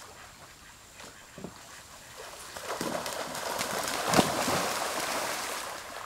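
River water splashing and sloshing as ducks churn across it, quiet at first, then building to busy splashing with one sharp splash a little after four seconds before easing off near the end.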